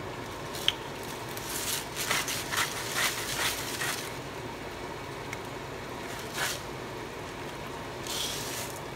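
Salmon simmering in broth in a stainless steel pot on the stove. A light click comes about a second in, followed by a run of brief rustling hisses over the next few seconds as salt is added, and another short hiss near the end.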